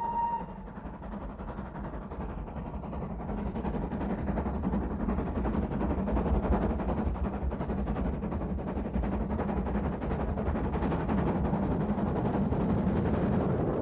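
BR Standard Class 4 steam locomotive approaching under steam, its exhaust beats coming as a fast, dense chuffing that grows steadily louder as it nears. The tail of its whistle cuts off about half a second in.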